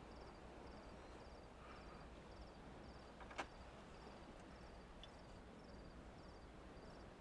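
Near silence, with faint crickets chirping about twice a second and a single sharp click a little over three seconds in.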